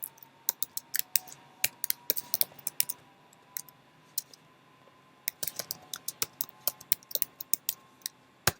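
Typing on a computer keyboard: quick, irregular runs of keystrokes with a pause of about two seconds in the middle.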